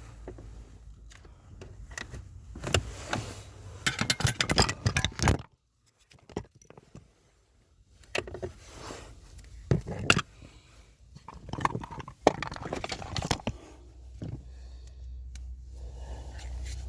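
Handling noise from hands working in a cramped space to fit a screw: rustling, scraping and irregular small clicks and clatter. A dense run of clicks about four seconds in, a short near-silent pause, then scattered knocks and scrapes.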